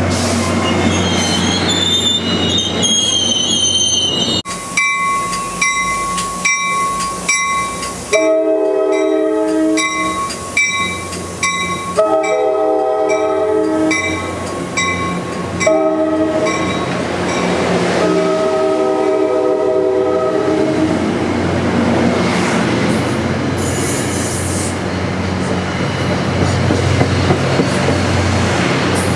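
NJ Transit commuter train's Nathan K5LA air horn sounding the grade-crossing signal: two long blasts, a short one and a long one. Before the horn a crossing bell dings steadily, and near the end the train's cars and F40 diesel locomotive rumble past.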